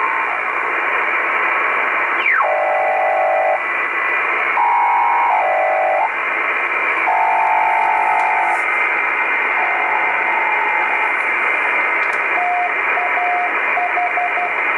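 Shortwave communications receiver in upper sideband, tuned across the 12 MHz maritime utility band: steady static hiss with blocks of steady data tones that jump in pitch every second or so. A falling whistle sweeps down about two seconds in as the tuning moves past a carrier, and short repeated beeps come near the end.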